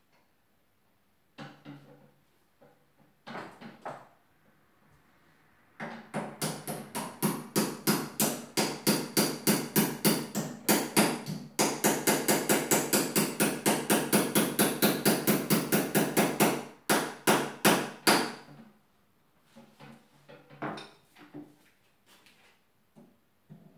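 Rapid, even light hammer taps on a metal pin, about five a second, driving it into the bone of a wildebeest skeleton's neck, after a few separate knocks. The tapping breaks off briefly near the middle and stops about three-quarters of the way through.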